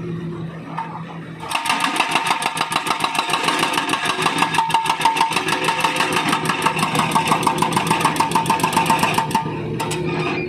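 Hydraulic breaker on a Volvo wheeled excavator hammering into asphalt in a rapid, even rhythm, starting about a second and a half in and stopping near the end. The excavator's diesel engine runs steadily underneath.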